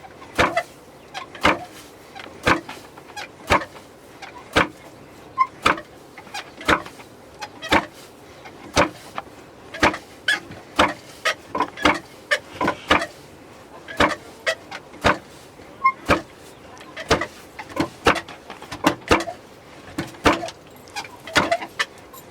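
Traditional hand-worked mill grinding barley, giving sharp knocks about once a second, often in quick pairs, in a steady working rhythm.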